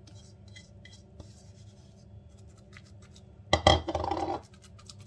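Faint scraping and rubbing of gloved fingers pushing minced meat around a glass dish; about three and a half seconds in, a louder clatter and scrape lasting nearly a second as the plastic mixing bowl is set down on the countertop.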